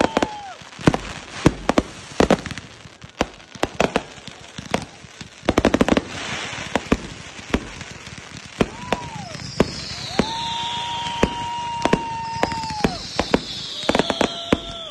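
Fireworks display: sharp bangs of aerial shells bursting one after another, with a burst of rapid crackling about six seconds in. In the second half, long whistling tones sound over the bangs, some holding steady and some falling in pitch.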